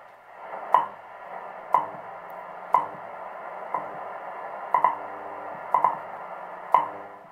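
WWV time signal at 10 MHz through a solid-state Allied A-2515 shortwave receiver's speaker: a sharp seconds tick about once a second over a steady band of static hiss.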